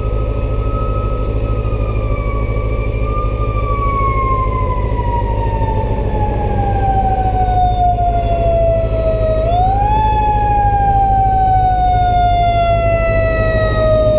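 Fire engine siren sounding a single long wail. Its pitch falls slowly, jumps back up about ten seconds in, then falls slowly again, over a steady low engine rumble.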